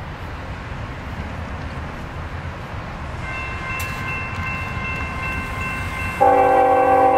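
Approaching Norfolk Southern freight train with a low, steady rumble, and thin steady high tones joining about three seconds in. Near the end the lead locomotive's horn starts, a loud chord of several notes.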